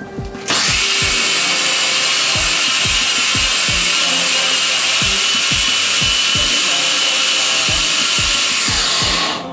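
Countertop stand blender with a glass jug switched on about half a second in, its motor running steadily at high speed as it blends leafy greens and liquid into a smoothie, then switched off near the end, the noise dying away.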